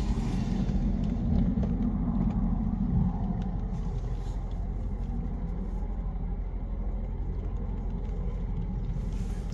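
Low, steady vehicle rumble heard inside a parked car's cabin, a little stronger in the first three seconds and then even.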